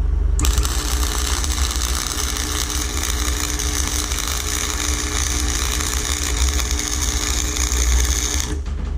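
Electric arc welding: the arc crackles steadily as a bead is run, starting about half a second in and cutting off shortly before the end, over the steady low hum of the welding machine.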